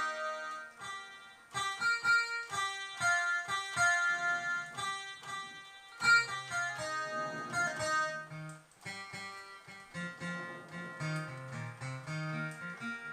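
Yamaha EZ-EG digital guitar sounding a plucked guitar voice from its built-in tone generator: a picked melody of quick single notes, with lower bass notes joining about six seconds in.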